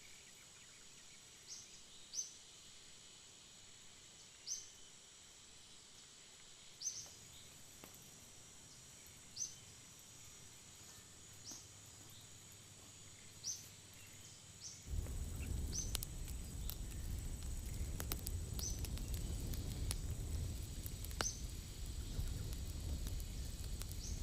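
Tropical forest insects droning steadily on a high note, with a short rising chirp repeated about every two seconds. About fifteen seconds in, a much louder rough noise full of crackles and clicks sets in and drowns out most of the forest sound.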